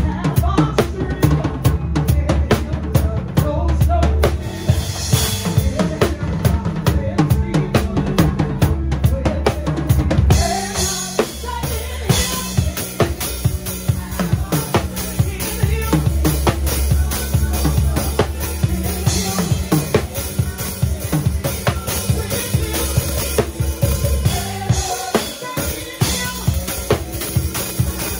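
Live church band instrumental: a drum kit plays a fast, busy beat over a steady bass line, with more cymbal wash from about ten seconds in.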